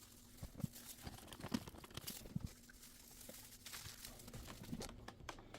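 Faint rustling with scattered light clicks and taps, as of small things being handled.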